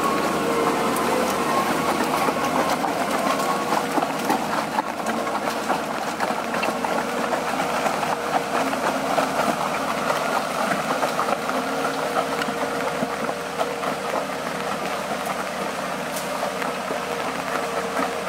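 Valmet 840.3 forwarder's diesel engine running steadily as the loaded machine crawls through deep mud on its bogie tracks, with a rattle of track plates mixed in. It grows a little fainter over the second half as it moves away.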